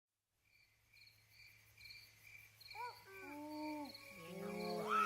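Crickets chirping in an even, repeating pattern, fading in from silence. About three seconds in, long rising-and-falling howls join and grow louder.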